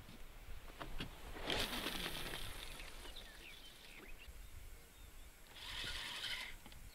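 A spinning rod cast: a swish as the jig is thrown and line runs off the spinning reel, about a second and a half in. Near the end comes a short burst of reel noise as the retrieve begins.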